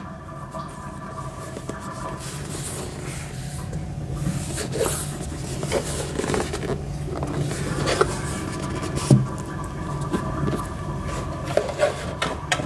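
Hands handling a cardboard watch box: scraping of fingers on the box and a few light knocks as it is turned over and set down, over a steady background hum.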